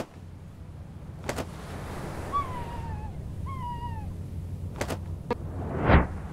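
Two short seagull calls, each falling in pitch, about a second apart, over a low steady rumble, with a few sharp clicks and a brief rising whoosh near the end.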